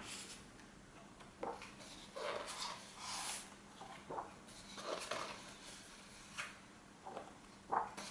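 Paper and cardboard being handled: short rustles of pages and packaging with a few light knocks.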